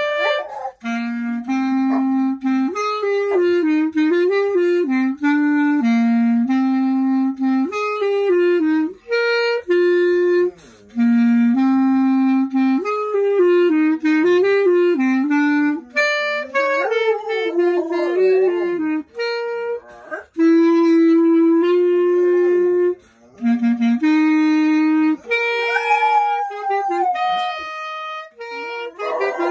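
Clarinet playing a melody of held notes while a German shorthaired pointer howls along, its wavering howls sliding up and down in pitch over the notes in the second half.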